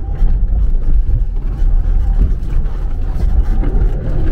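Land Rover Freelander 2's diesel engine pulling up a rutted off-road climb, heard from inside the cabin as a loud, low, uneven rumble with a few knocks from the body and suspension.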